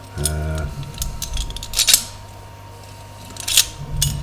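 Metallic clicks and clinks from a Discus padlock being handled, metal knocking against metal several times.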